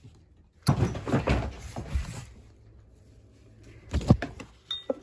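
Scuffling, rustling and bumps from a kitten scrambling about a room and being chased, a busy burst starting just under a second in and lasting about a second and a half, then a couple of sharp thumps about four seconds in.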